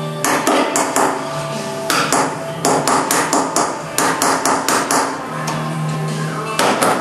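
Body hammer striking the sheet-metal edge of a car's quarter panel, sharp metallic blows in quick runs of three to six with short pauses, then a faster run near the end. The panel is being tapped forward to make it fit.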